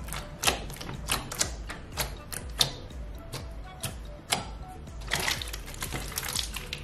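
Blue water slime (gelatinous glue-and-water slime) pressed and patted flat by hand, giving sharp wet clicks and pops about one or two a second. Near the end a denser run of crackling as fingers push into it.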